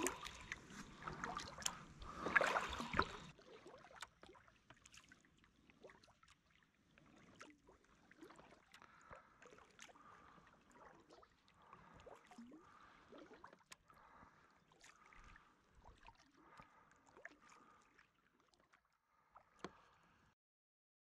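Water splashing and dripping around a kayak, with small clicks, louder for the first three seconds. After that come faint drips and lapping, which fade out near the end.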